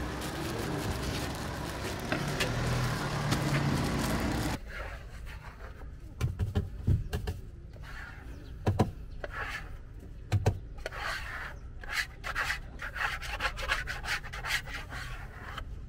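A cloth wiped back and forth across a wooden cutting board in short, irregular rubbing strokes, with a few dull knocks. For the first four seconds or so a denser, steadier noise runs before cutting off abruptly.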